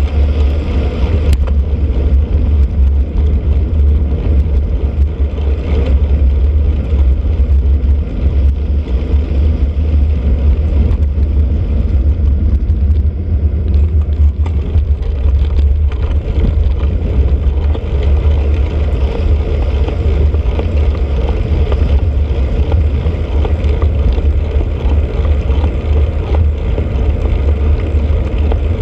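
Steady low rumble of wind buffeting the microphone of a bike-mounted camera while cycling, mixed with road noise from the ride.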